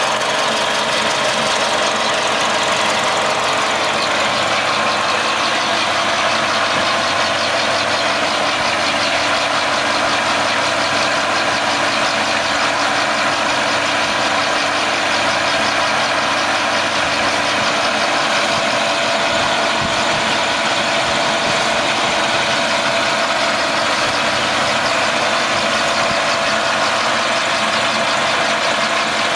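Milling machine cutting a port into an aluminium rotary engine rotor housing: a steady, loud machining whine and hiss that holds even throughout.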